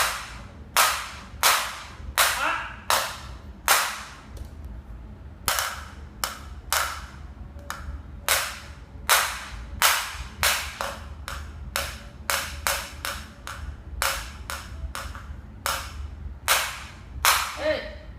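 Repeated sharp bangs from someone playing and making noise, some two dozen at uneven intervals of about half a second to a second, each dying away quickly, with a short pause after the first few.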